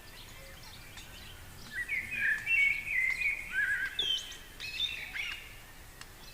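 Bird calls: a run of chirping, warbling notes starts about two seconds in and lasts about three seconds, over a faint steady background hiss.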